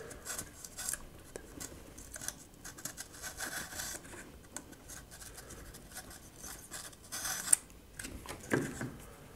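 Double-edged razor blade slicing and scraping through the overhanging ends of thin wooden deck planks, trimming them flush with the deck edge: a run of short, irregular cutting scrapes, with one sharper snap about seven and a half seconds in.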